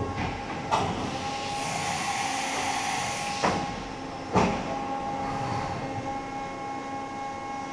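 Deckel Maho DC 70V CNC machining center running with a steady machine hum and whine as its spindle head moves. There are three sharp clunks, about a second in, at three and a half seconds and at four and a half seconds, and a hiss of air between the first two.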